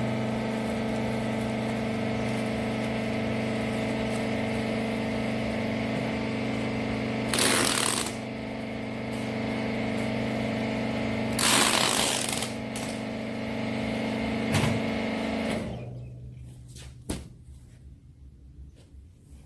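Wiper rags baler machine running with a steady hum from its hydraulic pump motor, broken twice by short loud hissing bursts; the motor shuts off about sixteen seconds in, leaving only faint clicks.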